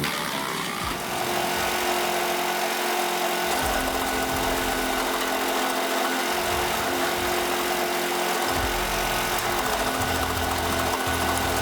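Wood chipper running steadily under power, its engine drone joined by a deeper rumble that comes and goes several times as it works.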